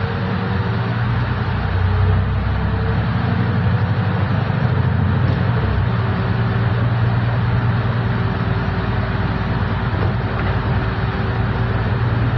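Solaris Urbino 12 IV city bus driving, heard from inside at the front: a steady low engine and drivetrain hum with road noise, and a faint whine running alongside.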